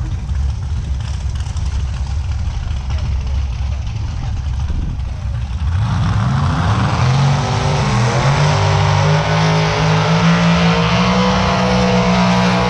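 Car engine over a low rumble; about six seconds in it revs up quickly and then holds high, nearly steady revs.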